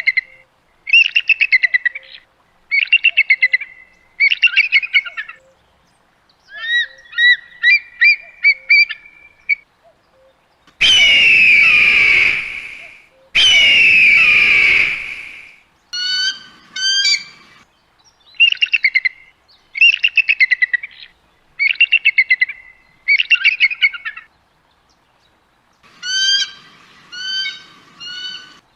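Eagle calls: repeated bursts of rapid, high chittering notes, one series about every two seconds. About eleven seconds in, two long, harsh screams with falling pitch follow one after the other, the loudest calls of the stretch.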